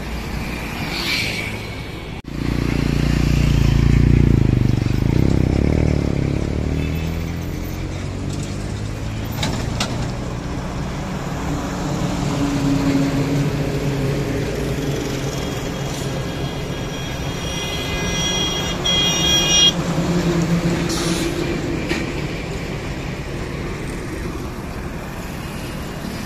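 Highway traffic going by: heavy trucks, buses and cars, with a heavy vehicle's engine swelling loud as it passes a couple of seconds in. A vehicle horn sounds steadily for about three seconds past the middle.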